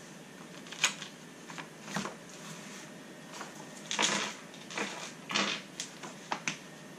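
Pages of a paper instruction booklet being turned and handled, with a series of short rustles and crisp clicks. The longest rustle comes about four seconds in, and quicker snaps follow near the end.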